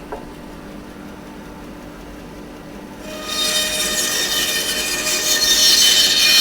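Bandsaw motor running with a steady hum; about three seconds in, the blade starts cutting through a block of green log wood, a loud rasping noise that grows louder as the cut goes on.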